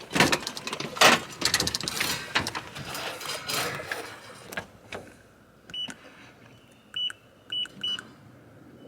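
Handling clicks and rattles, then four short high beeps from an electronic keypad door lock as its code buttons are pressed.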